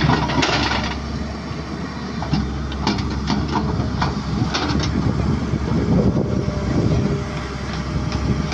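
Tata Hitachi hydraulic excavator's diesel engine running steadily while the machine digs and scoops loose soil with its bucket, with scattered short knocks and clanks.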